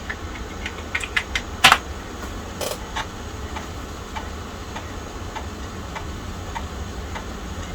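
Typing on a Tandy 1000 EX's keyboard: a quick run of key clicks with one louder keystroke a little under two seconds in, then fainter scattered clicks, over a low steady hum.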